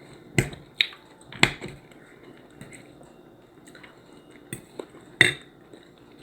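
Close-up eating sounds: a handful of short, sharp, wet clicks and smacks, spaced irregularly, with a cluster in the first second and a half and another about five seconds in.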